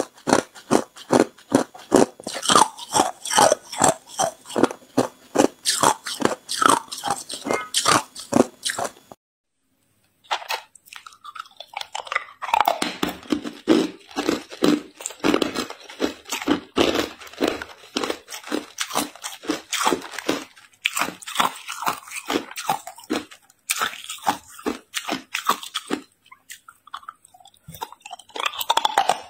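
Close-up crunching of ice being bitten and chewed: a quick run of sharp crunches through crushed ice, then a moment of total silence about nine seconds in. After that comes steadier crunching and grinding as hard ice cubes are chewed.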